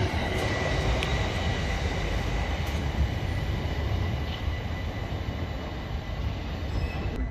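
London Overground Class 378 electric multiple unit running along the track: a steady low rumble of wheels on rail with a thin, steady high whine over it.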